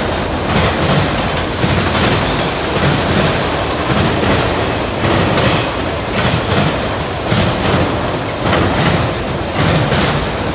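Freight train's cars rolling past close by: a steady rumble and rattle, with the wheels clacking over the rail joints in repeated beats.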